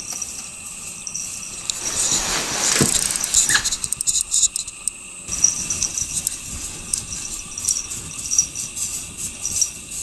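A cat pawing and scratching at a wall of packed snow: a run of short, crisp scratches through the second half, after a brief rushing noise a couple of seconds in.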